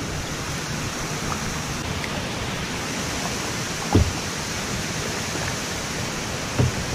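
Steady rushing noise of water and air around a kayak being paddled, with two short dull thumps about four and six and a half seconds in.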